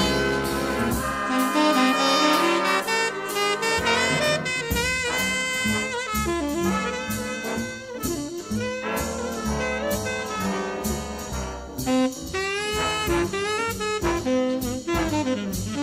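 Jazz with brass and saxophone, played back from a cassette recorded with Dolby C on a Kenwood KX-5530 auto-reverse cassette deck.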